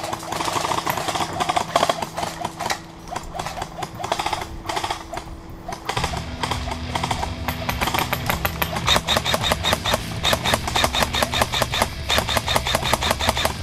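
Airsoft guns firing rapid full-auto strings of sharp clicking shots, about nine a second: one burst in the first two seconds, then a longer, louder run of fire from about nine seconds in.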